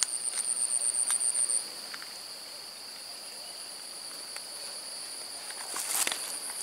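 Insects trilling steadily in a high, continuous chorus, with a louder, rapidly pulsing trill for the first second and a half that then stops. A few faint clicks, and a brief rustle about six seconds in.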